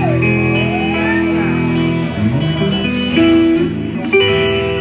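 Guitar playing an instrumental passage of a folk-rock song, with sustained chords changing every second or so and a higher line sliding down and back up in pitch near the start.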